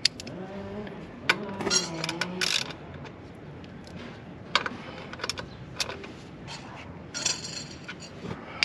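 Scattered light metallic clinks and taps of an Allen key and hands working on a motorcycle's rear brake caliper bolts as they are tightened, with a quick cluster of clicks near the end.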